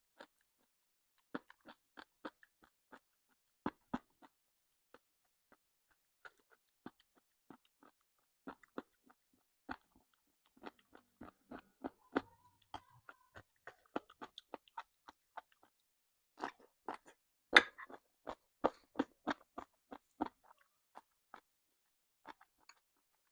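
Close-up chewing of crunchy jellyfish: irregular wet crunches and crackles, sparse at first, then coming thick and fast, with one louder crunch about three-quarters of the way through.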